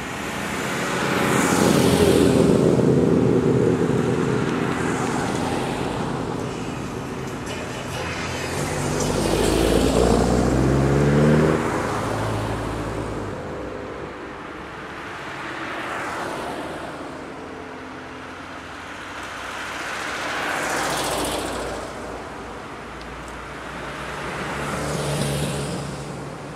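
Old cars driving past one after another, about five pass-bys, each engine and tyre noise swelling and then fading away. About ten seconds in, one engine's pitch climbs as it accelerates.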